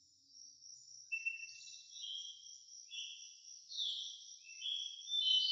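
Crickets chirring in a steady high drone. From about a second in, a bird sings short whistled notes at shifting pitches, loudest near the end.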